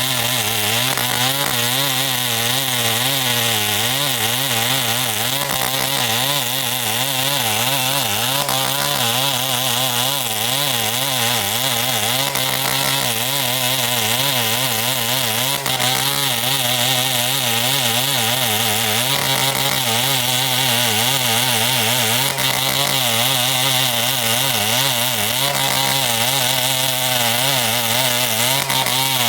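Two-stroke chainsaw running continuously at high revs while cutting timber, its engine note wavering up and down without pause.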